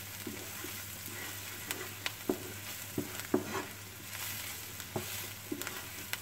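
Diced onion and sweet paprika sizzling in olive oil in a non-stick frying pan, stirred quickly with a wooden spatula that scrapes and knocks against the pan at irregular intervals over the steady sizzle.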